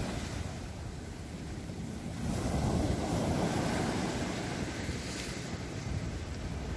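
Sea waves breaking and washing up a sandy beach and over rocks. One surge grows louder a couple of seconds in, with wind rumbling on the microphone.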